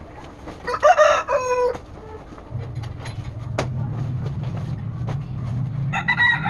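A rooster crowing twice, each crow about a second long, the second one near the end. A low steady drone comes in about two and a half seconds in, and there is a single sharp click shortly after.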